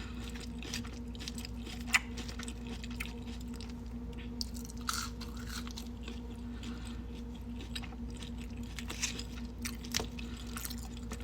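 Close-up chewing of a burger: moist mouth sounds with irregular small crunches and clicks, one sharper click about two seconds in. A steady low hum runs underneath.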